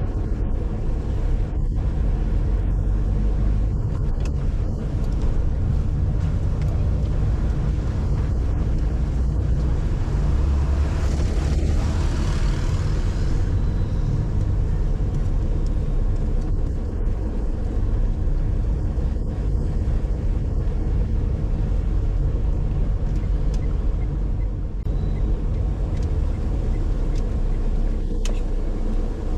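Car being driven: a steady low rumble of engine and road noise, with a louder hiss that swells and fades near the middle.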